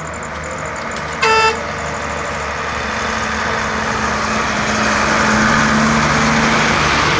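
Roadside traffic: a vehicle horn gives one short toot about a second in, then a truck's engine and tyres grow steadily louder as it approaches.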